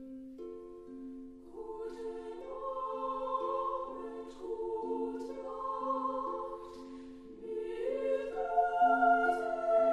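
Background music: a low note repeats steadily, and about a second and a half in choir voices join with slow, held notes that grow louder near the end.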